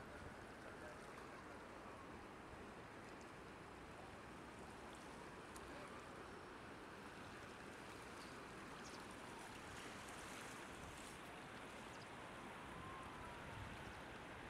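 Faint, steady rush of the Ebro River in flood, its high water running fast over the bank, with a siren faintly wailing slowly up and down.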